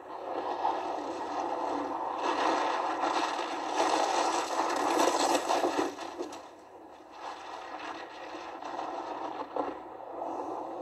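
Ski edges scraping and hissing on hard, icy snow as a downhill racer carves through turns at speed, heard from a TV broadcast through the television's speaker. The scraping swells for a few seconds in the middle, then eases off.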